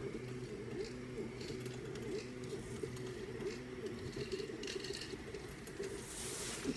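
Creality Ender 3 V2 3D printer's stepper motors whining while it prints, the pitch sliding up and down quickly as the print head moves back and forth.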